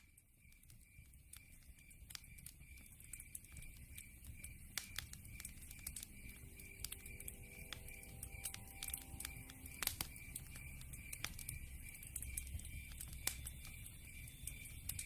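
Wood fire in a fireplace crackling, with irregular sharp pops over a low rumble of burning logs, fading in over the first few seconds. A faint steady high tone sits underneath.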